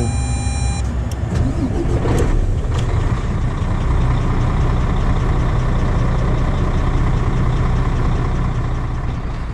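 Heavy diesel truck engine running steadily at idle, a loud, even low hum.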